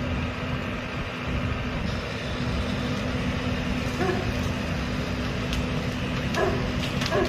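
Diesel engine of a backhoe loader running steadily with a low rumble and a constant hum. A few short calls, a voice or a dog, come through about four seconds in and again near the end.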